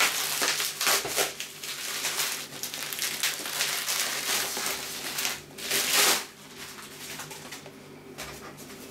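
Plastic postal mailer bag being torn open and crinkled as a cardboard box is pulled out of it, with a loud rustle just before six seconds in, then quieter handling.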